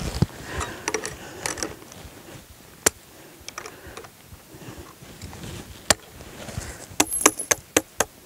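Steel trap chain and tie wire clicking and clinking as a second wire is worked through a chain link and around a wooden drag stick. There are scattered sharp clicks, then a quick run of clicks near the end.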